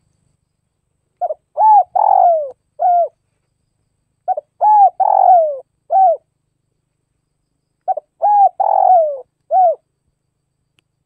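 Spotted dove cooing: three song phrases about three seconds apart. Each phrase is a quick stuttered pair of notes, then a coo, a longer rough, falling coo and a final short coo.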